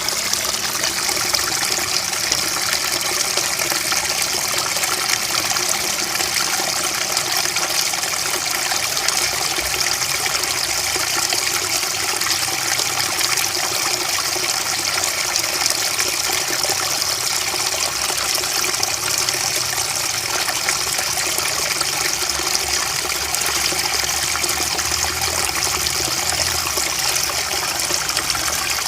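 Trickling, babbling water running steadily, an unbroken splashing hiss with a bright, high edge.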